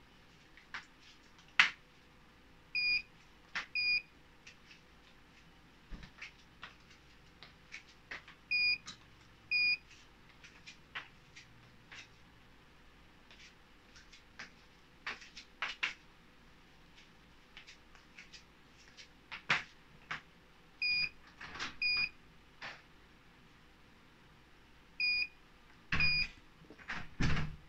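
Portable mini spot welder beeping in short pairs about a second apart, four times over, among sharp snaps as the handheld pens weld nickel strip onto 18650 battery cells. The loudest snaps come near the end.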